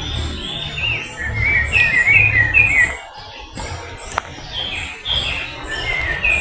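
Birds singing in the trees: a busy run of short, quick chirps and warbling notes, over a low rumble.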